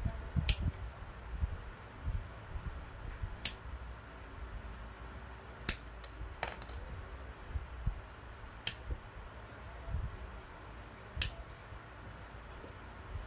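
Sharp little clicks of hard plastic from work on a Bandai Pokemon Plamo snap-fit model kit, about seven of them spaced irregularly a second or more apart, over soft handling rustle. This is the sound of parts being snipped from the runners with hobby nippers or handled and snapped together.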